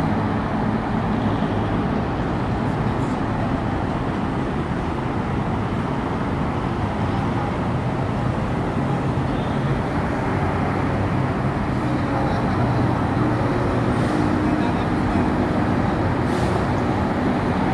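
Steady road-traffic noise: a continuous rumble of passing and idling motor vehicles on the street.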